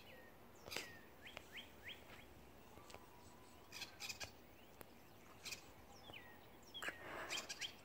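Faint chirping of small birds: short calls that sweep down in pitch, several coming in quick runs of three or four.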